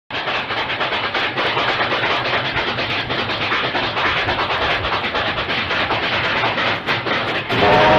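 Train running by with a loud, steady noise of wheels on the rails. Near the end its horn starts, a chord of several steady notes.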